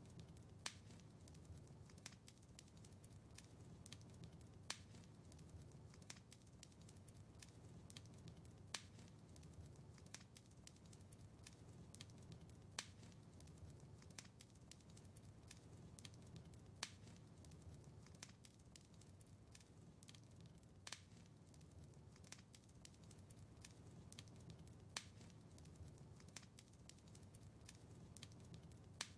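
Wood fire in a fireplace crackling faintly: a steady low rumble of flames under scattered small crackles, with a sharper pop about every four seconds.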